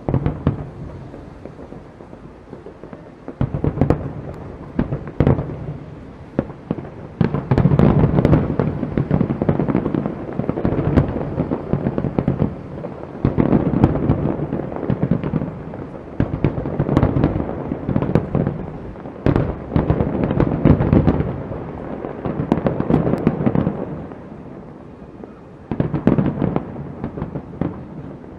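Aerial fireworks display: rapid volleys of shell bursts and crackling, coming in dense waves with brief lulls between them.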